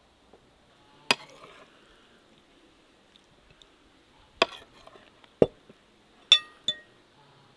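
A metal spoon clinking against a ceramic plate at a meal: five sharp clinks spread over several seconds, the last two ringing briefly.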